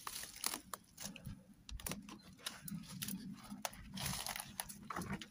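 Footsteps crunching through dry dead leaves and twigs, an irregular run of small crackles and snaps.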